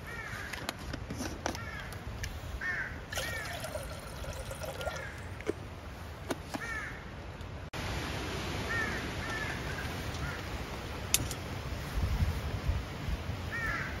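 Crows cawing in short runs of two or three calls, repeated throughout, over a steady background hiss.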